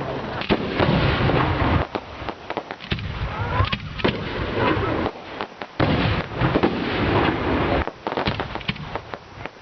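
Fireworks going off: a dense run of bangs and crackling, with a few short lulls between volleys.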